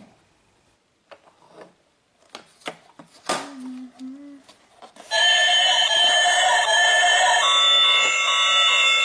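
Scattered clicks and taps of a plastic toy being handled. About five seconds in, a toy bullet train's built-in electronic sound starts: a loud, shrill run of several high beeping tones whose pattern changes partway through.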